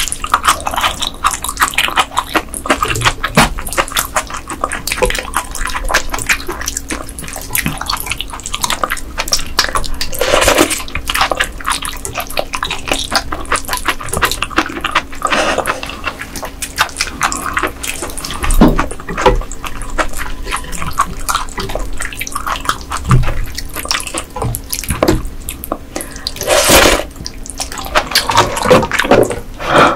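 Close-miked wet eating sounds of raw ice goby sashimi being chewed and slurped from a spoon: constant small squishy clicks, with a few louder slurps about ten seconds in, around fifteen seconds and near the end.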